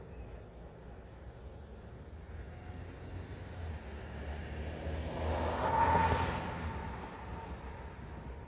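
A car passes by, its engine and tyre noise swelling to a peak about six seconds in and then fading. A fast high trill follows near the end.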